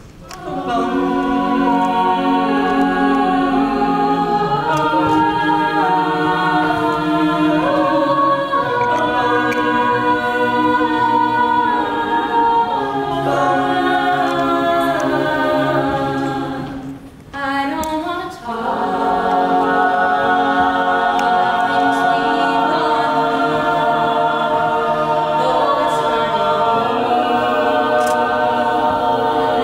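Mixed a cappella vocal group singing in close harmony, several voices holding layered chords together. The singing breaks off briefly about seventeen seconds in, then resumes.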